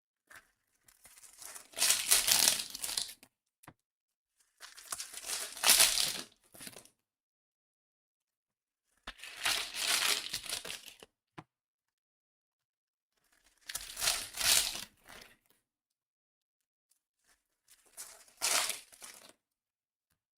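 Trading-card pack wrappers being torn open by hand, five crinkly rips about four seconds apart.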